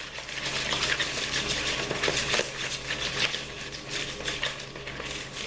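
A utensil stirring a liquid lemon-juice marinade in a bowl: continuous scraping and swishing with many small clicks against the bowl.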